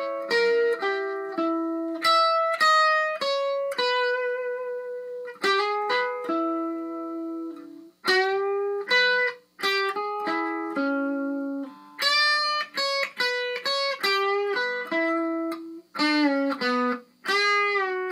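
Unaccompanied SG-style electric guitar playing a single-note lead line, with string bends that glide up in pitch and brief pauses between phrases.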